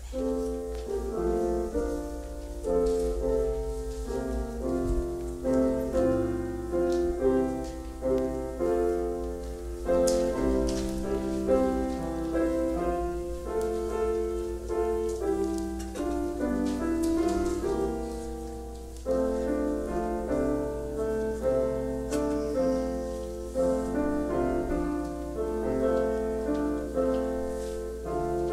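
Instrumental keyboard music, piano-like, playing a steady succession of chords and melody notes. A steady low hum lies underneath.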